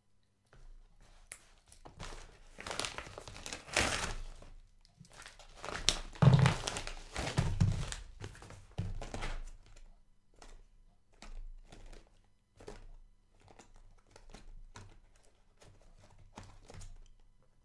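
Crinkling and rustling of packaging being handled, loudest in two stretches early and midway, with knocks and then a run of short separate clicks.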